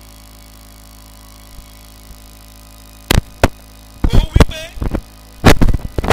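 A low steady hum, then from about three seconds in a series of very loud, distorted percussive hits, with a wavering pitched sound among them.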